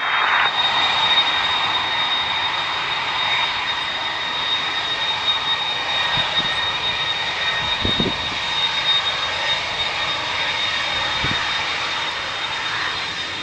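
Jet airliner engines running nearby: a steady rush with a high whine, and a few brief low thumps partway through.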